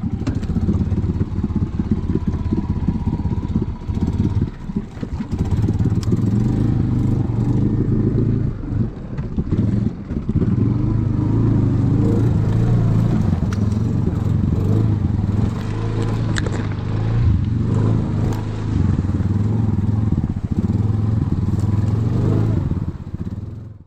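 ATV engine running under load while riding, with scattered clatter and knocks; the engine note is steadiest from about ten seconds in, and the sound cuts off suddenly at the end.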